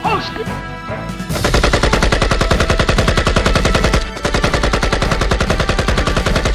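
Automatic rifle fire: a fast, continuous stream of shots starting about a second and a half in, with a brief pause near the middle.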